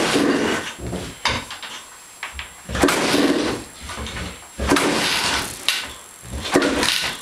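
1991 Honda CR250 two-stroke dirt bike being kick-started, four kicks about two seconds apart, each a clattering burst as the engine turns over without catching. The bike won't start despite a new sleeve, rings, plug and jets.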